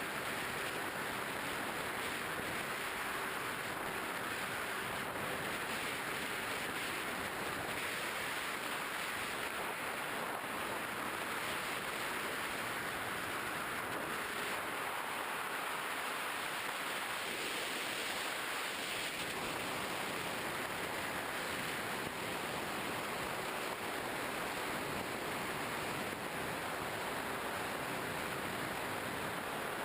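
Steady airflow rush over a GoPro Hero 2 on a Skywalker 1900 mm model plane in flight. A faint steady tone wavers underneath.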